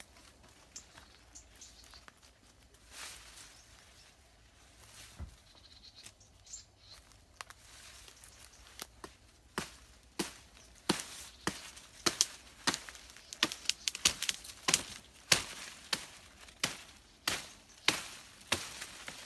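A blade chopping small sticks of wood: sharp knocks, sparse at first, then about two a second through the second half.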